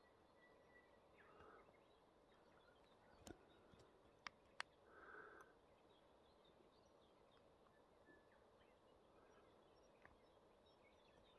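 Near silence: faint outdoor ambience with a few faint, distant bird chirps and a few soft clicks near the middle.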